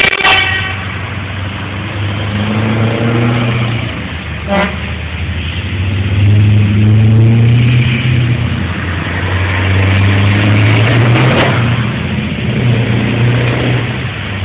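Heavy truck diesel engines pulling away and accelerating, the engine note rising in several waves with pauses between them like gear changes. A truck horn blast ends right at the start.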